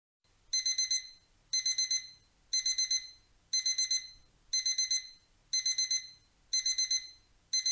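Digital alarm-clock beeping, starting about half a second in: groups of four quick, high beeps repeating once a second, the alarm that sounds when the countdown timer reaches zero.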